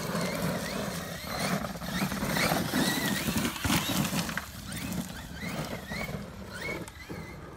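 Cen Reeper 1/7-scale RC monster truck driving hard over loose dirt: its electric motor whines, rising and falling in pitch with the throttle, over the crunch of the tires on gravel. A few knocks come near the middle as it bounces over the jumps.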